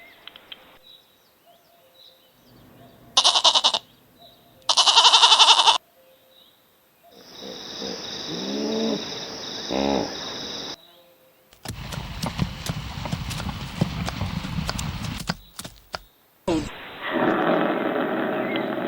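A run of different animal calls, one short recording after another with brief gaps: two loud pitched calls about three and five seconds in, a call with falling pitch glides around eight to ten seconds, a rough noisy stretch of several seconds, then another call near the end.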